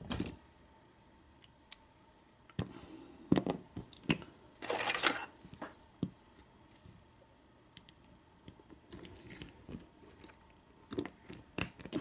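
Small metal clicks and clinks of a brass padlock cylinder and hand tools being handled on a rubber bench mat as the picked lock is taken apart, with a short scrape about five seconds in.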